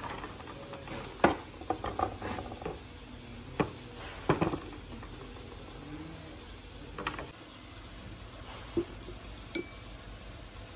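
Hand tools and a car AC compressor clinking and knocking against a workbench as the compressor is handled for disassembly: about ten irregular metallic strikes, one near the end with a brief ring.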